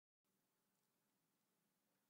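Near silence: digital silence, then an extremely faint background hiss.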